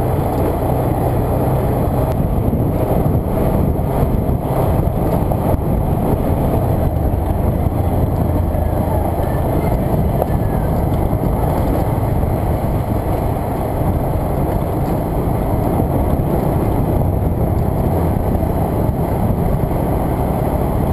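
Motorcycle engine running steadily at cruising speed on a dirt road, heard from a camera mounted on the bike, with a constant low rumble and rush of noise.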